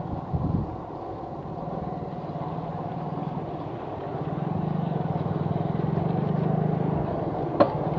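Machinery running steadily with a low drone that grows a little louder partway through, and a sharp knock near the end.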